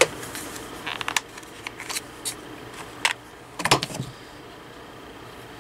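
Small clicks and taps of a plastic cordless phone handset being handled with its battery compartment open, a scatter of sharp knocks over the first few seconds, the loudest a little before the end of them.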